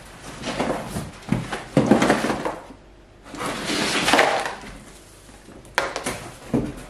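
Cardboard shipping box being lifted and turned upside down, with plastic-bagged items and packing paper sliding out and rustling onto a table in two stretches of scraping and crinkling. Two sharp knocks near the end as the box is handled.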